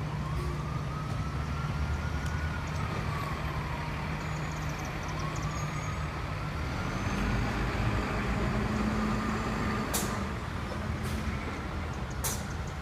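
Fire truck responding: its siren rises and falls slowly, faint over the heavy low rumble of the truck's engine, which swells for a few seconds midway. Two sharp clicks come near the end.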